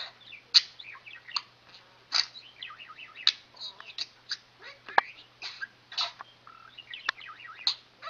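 Budgerigar warbling and chattering: a quick, irregular run of short chirps, squeaks and clicks, with a few sharper clicks standing out.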